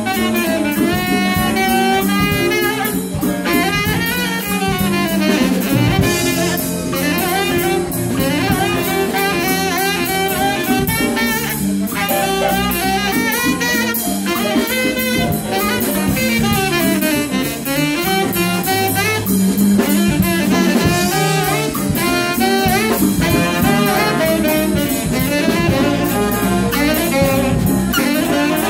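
Live jazz band: a tenor saxophone soloing in quick runs of notes over electric bass and a drum kit.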